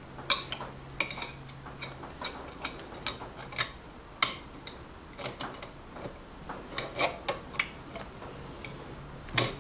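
Steel snap ring being worked into its groove in a Ford C4 automatic transmission clutch drum, on top of the clutch plates: irregular light metallic clicks and taps, with a sharper click about four seconds in and another near the end.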